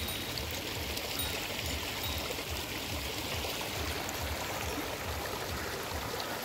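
Steady rushing of a stream, with soft low thumps recurring about two to three times a second underneath.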